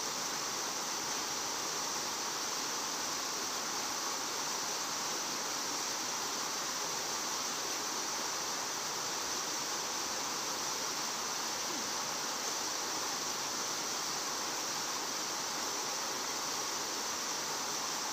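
Steady outdoor background noise: an even hiss with no separate events.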